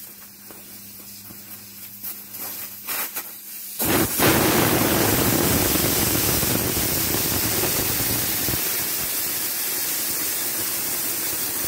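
Air rushing out of a car tyre through the open valve stem, its valve core unscrewed to deflate it: a few small clicks at the valve, then about four seconds in a loud, steady hiss starts suddenly and keeps going.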